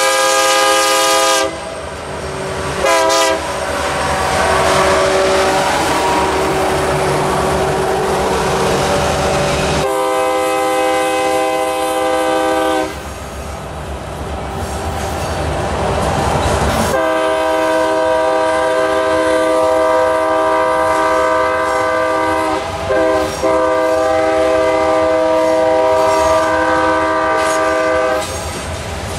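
Air horn (a Nathan K3LA) on a Norfolk Southern diesel locomotive blowing for a grade crossing. One blast ends about a second and a half in and a short toot follows, then a long blast around ten seconds in and a longer one from about seventeen seconds that runs almost to the end. Under and between the blasts are the rumble and wheel clatter of the loaded hopper cars rolling past.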